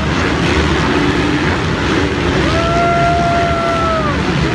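Several motocross bikes' engines running hard and revving as riders climb and jump the track, with a held high note from about halfway through that drops away near the end.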